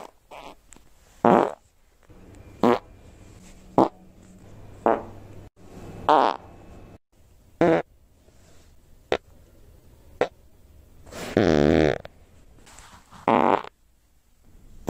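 A rapid string of fart sounds: about ten short farts a second or so apart, with one longer, drawn-out fart of about a second later on.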